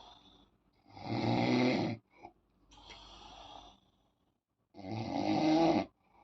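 Snoring in sleep: two loud, rasping snores, each about a second long and about four seconds apart, with a softer breath between them.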